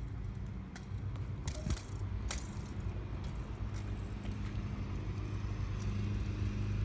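Kick scooter wheels rolling over concrete, with a few sharp clicks in the first couple of seconds as they cross the slab joints and the curb edge. Under it runs a steady low mechanical hum, like a motor running, which grows louder near the end.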